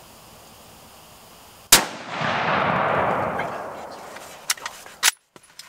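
A single rifle shot about 1.7 seconds in, a sharp crack whose report rolls and echoes away over about two seconds, followed by a few faint clicks near the end.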